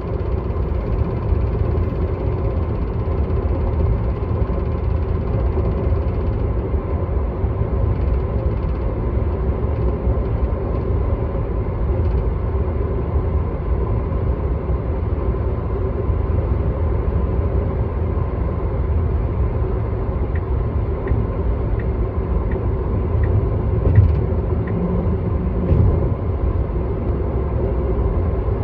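Tesla Model 3 on the move: steady road rumble with an intermittent light rattle from the car, which the owner finds annoying. A run of light ticks about two a second comes about two-thirds of the way in, followed by two louder knocks.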